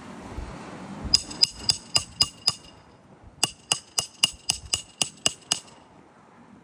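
Hammer blows with a bright metallic ring: about six quick strikes, a short pause, then about nine more, roughly four a second.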